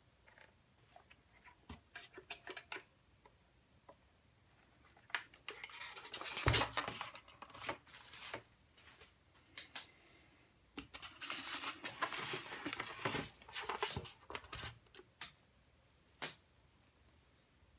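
Handling noise from an induction cooker and its polystyrene foam packaging: scattered light clicks and taps, then two longer stretches of scraping and rustling of foam and plastic, with a sharp knock about six and a half seconds in.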